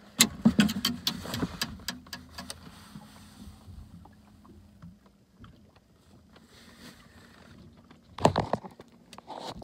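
Handling clatter aboard a fishing boat: a quick run of sharp knocks and clicks in the first couple of seconds, then scattered faint ticks, and a louder short rustling burst near the end.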